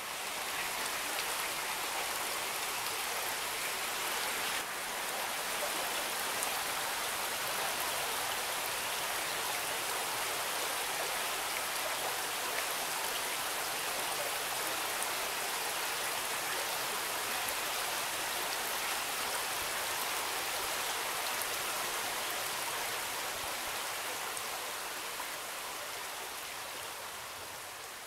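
Creek water rushing and splashing over a small rocky falls, a steady hiss that grows a little fainter near the end.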